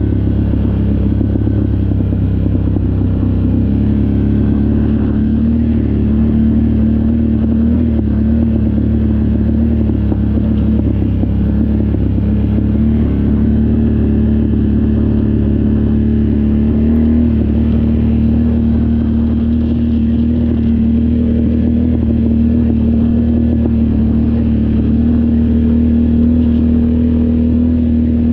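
ATV engine running steadily under way, its note stepping up slightly about four seconds in and then holding even over a low rumble.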